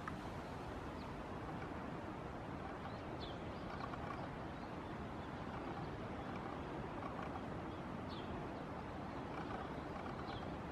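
Steady outdoor background noise, a low rumble and hiss, with a few faint short high chirps scattered through it.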